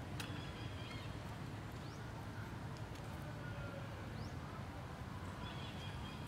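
Quiet outdoor background with a few faint, short high-pitched chirps, near the start and again near the end.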